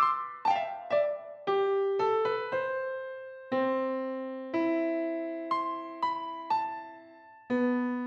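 Background music: a slow keyboard melody of struck piano-like notes, each ringing and fading, with a new note or chord every half second to a second.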